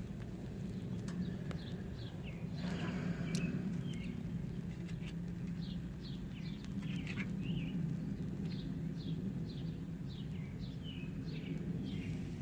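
Small birds chirping repeatedly in short, quick downward-sweeping calls, over a steady low hum, with a short burst of noise about three seconds in.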